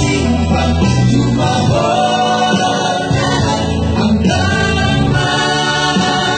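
Several men singing together into microphones, accompanied by an electronic keyboard.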